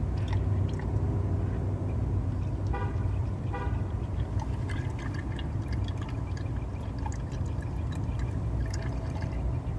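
5W-30 synthetic motor oil glugging and trickling as it is poured from a bottle into the engine's oil filler. Two short tooting tones sound about three seconds in, over a steady low rumble.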